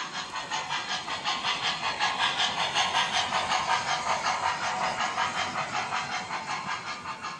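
O scale model steam locomotive running past with quick, even hissing chuffs from its onboard sound system, over the running noise of the wheels on three-rail track. The chuffing swells to its loudest a few seconds in and fades as the engine and tender move on.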